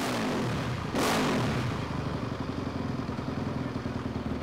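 2009 Honda CRF450R's fuel-injected single-cylinder four-stroke engine blipped twice on the stand, the revs jumping up sharply and falling back each time, at the start and again about a second in, then idling steadily. The blips test throttle response for the controller's accelerator-pump (green-blue) fuel setting.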